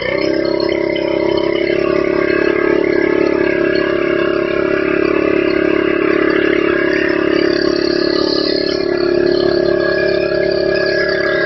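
Petrol-engined pressure washer running steadily under load as its water jet sprays onto stone paving, a constant engine and pump drone with spray hiss over it.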